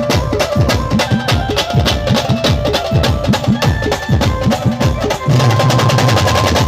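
Instrumental interlude of a live Indian band playing a Hindi film song: quick low drum strokes that each drop in pitch, under a steady melody line. About five seconds in, a held low note joins.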